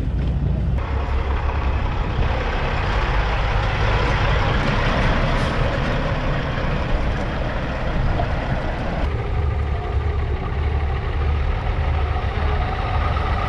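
Diesel semi-truck engines running close by: a steady, heavy low rumble.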